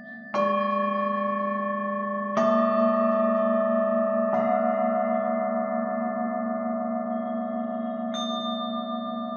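Metal chime tubes struck one at a time with a mallet: three strikes about two seconds apart, then a higher, softer one near the end, each note ringing on over a low wavering hum.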